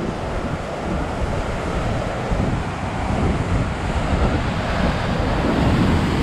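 Wind buffeting the camera microphone over ocean surf breaking on the rocky shore, a steady rush that gets stronger toward the end.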